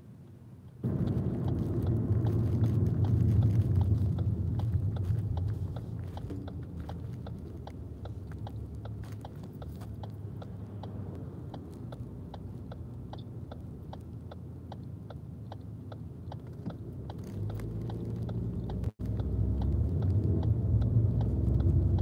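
Steady low rumble of a car heard from inside the cabin, with many small clicks and rattles over it. It jumps louder about a second in and cuts out for an instant near the end.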